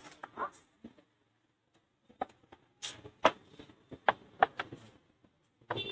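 Scattered metallic clicks and knocks of hand tools and bolts as the front sprocket cover of a TVS Stryker motorcycle is taken off, sparse at first and busier from about two seconds in.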